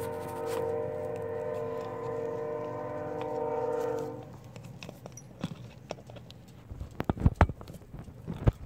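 A steady pitched drone for about four seconds, then a run of sharp metal clicks and taps as tools and parts are handled on a GY6 scooter engine's piston and connecting rod.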